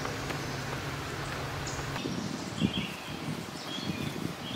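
A steady low hum with a hiss that cuts off about two seconds in. After it, songbirds chirp in the woods, with rustling and a few soft thuds as someone moves through the brush.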